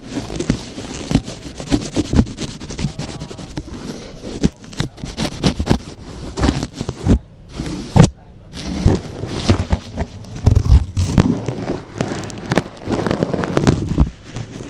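Close-miked ASMR scratching and scraping with many sharp taps, made with a toothbrush, feather or stick against the microphone; it breaks off briefly about seven seconds in and resumes with a sharp tap.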